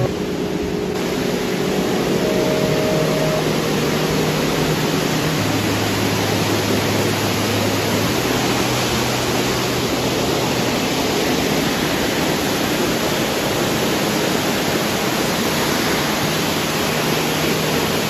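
Rushing water of the gorge's creek and waterfalls, a loud steady hiss that grows fuller about a second in. Soft background music with long held low notes runs under it through the first half and returns near the end.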